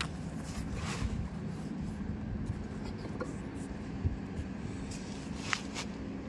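A steady low machine hum with a few light metal knocks and clicks, the clearest about four and five and a half seconds in, as a heavy steel bearing housing is worked by hand down onto a bulldozer transmission case.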